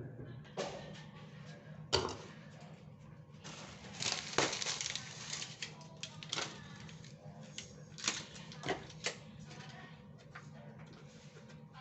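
Irregular clicking and clattering of utensils and containers being handled, with a sharp knock about two seconds in and a busier spell of clatter around four to five seconds, over a steady low hum.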